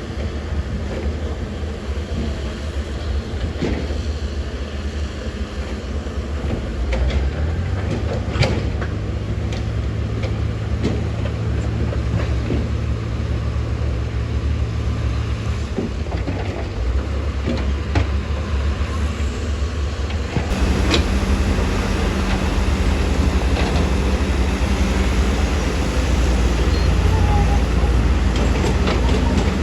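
Heavy diesel earthmoving machinery running steadily, with a few sharp metallic clanks. The engine note rises about a quarter of the way in, and the sound changes abruptly about two-thirds of the way through.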